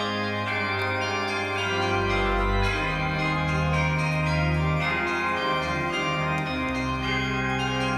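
Background music of slow, sustained keyboard chords that change every second or two.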